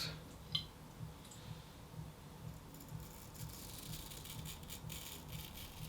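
Straight razor cutting through lathered stubble: faint, crackly scraping strokes, clearer in the second half, with a small click about half a second in.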